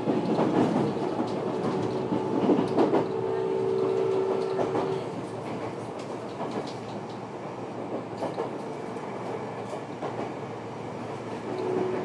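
Tokyo Metro 10000 series train running, heard from inside the passenger car: wheel-and-rail rumble with clickety-clack from rail joints. A steady pitched whine is held for about two seconds a few seconds in and comes back near the end. The running noise is louder over the first half and then eases.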